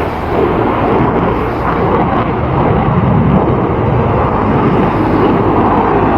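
Airplane flying overhead, its engine noise loud and steady.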